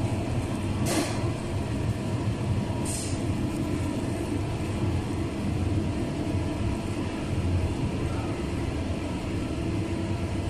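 Manroland 700 sheetfed offset printing press running with a steady mechanical drone. Two short hisses cut through about one and three seconds in.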